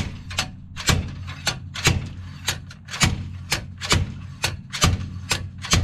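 Slide hammer threaded into a bearing puller, its weight slammed back against the stop again and again, making sharp metallic clanks at about two a second. It is jerking the rear wheel bearing and seal out of a 2017 Ram 1500's 9.25-inch axle tube.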